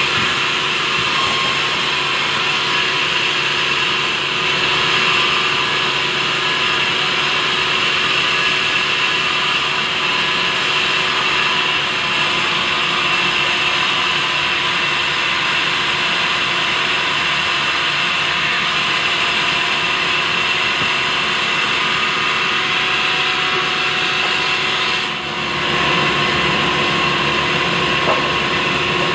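Sawmill band saw running steadily with a constant whine. Its sound dips briefly about 25 seconds in.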